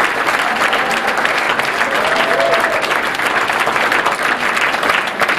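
Large audience applauding: dense, sustained clapping that holds steady.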